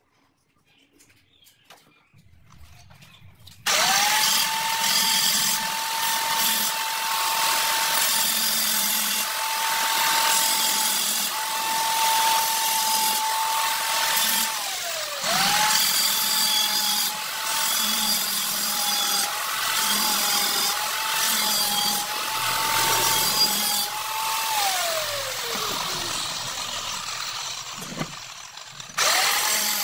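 An electric power tool's motor starts about four seconds in and runs at a steady high whine with a harsh, hissing edge. Midway it dips briefly and spins back up. Near the end it winds down with a falling pitch, and it starts up again just before the close.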